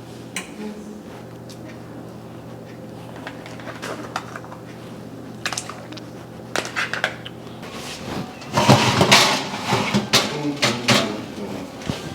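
Kitchen clatter of pots, lids and utensils: scattered clicks and knocks over a steady low hum that cuts off partway through, then a louder busy stretch of clattering and scraping near the end.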